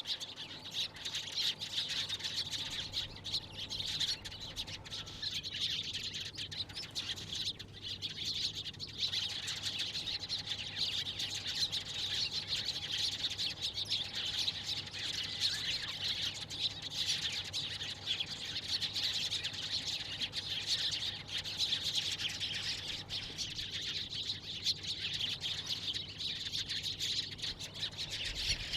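A flock of Eurasian tree sparrows chirping continuously, many overlapping chirps, with brief lulls about seven seconds in and again near the end.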